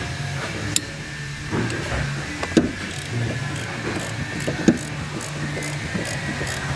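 Hand tools on the top nut of a car's rear strut: a wrench turning the nut while locking pliers hold the strut shaft from spinning, giving a few sharp metal clinks and a run of light, regular ticks in the second half, over a steady low hum.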